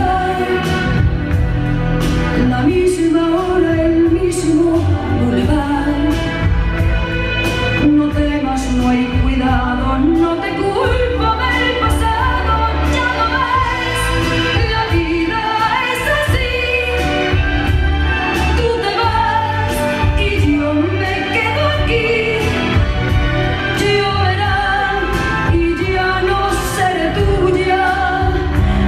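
A woman singing a Spanish-language ballad over band accompaniment, with a steady bass line and regular drum hits.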